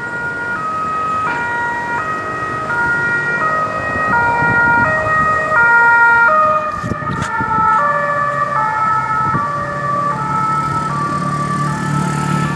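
Ambulance siren sounding a two-tone hi-lo pattern, each tone held about half a second. The pitch of the tones drops slightly about halfway through, and the vehicle's engine and road rumble grow louder near the end.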